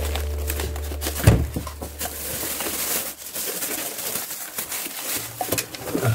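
Plastic polybag crinkling and rustling as a UPS unit is slid out of its styrofoam packing and unwrapped, with a few knocks from handling, the loudest about a second in.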